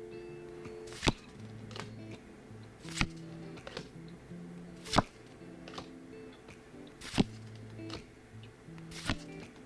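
Background music: held low synth notes that change every second or so, with a sharp percussive hit about every two seconds.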